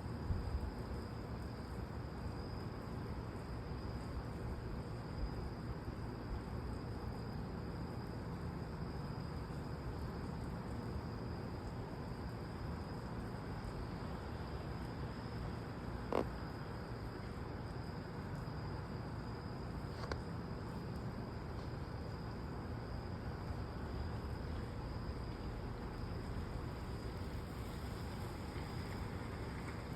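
Crickets trilling steadily in the night, a constant high, even chirring, over a low steady rumble. Two brief clicks, about halfway through and again a few seconds later.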